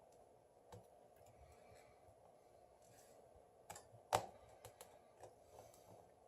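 Faint, scattered clicks and taps of a small screwdriver and tools on a smartphone's frame while its screws are being removed, the sharpest click about four seconds in.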